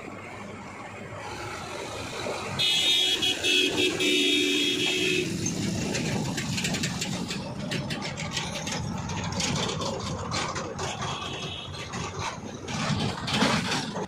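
Road traffic with engines running; a vehicle horn sounds once, held for about two and a half seconds, about three seconds in. It is the loudest sound here.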